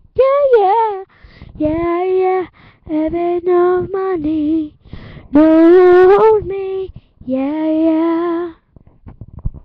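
A young girl singing unaccompanied into a handheld microphone: several sung phrases with long held notes and short gaps between them, the last ending near the end, followed by a few soft thumps.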